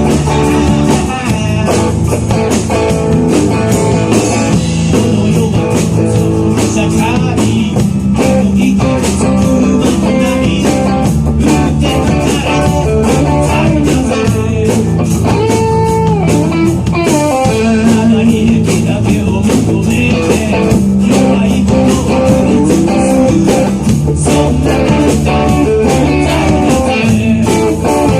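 Rock and roll band playing live on guitar, bass and drums at a steady beat, with the guitar carrying a lead line of bending notes.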